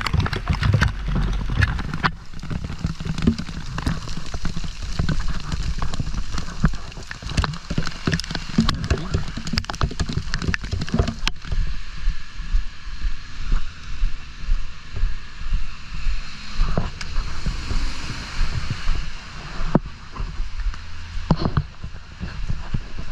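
Dual-sport motorcycle riding, its engine a steady low rumble under wind and water noise, with water and slush splashing. Many sharp ticks and knocks over the first half give way to a steadier hiss.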